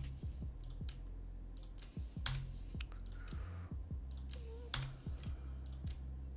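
Computer keyboard keys and mouse buttons clicking at irregular intervals, several a second with a few sharper ones, over a steady low hum.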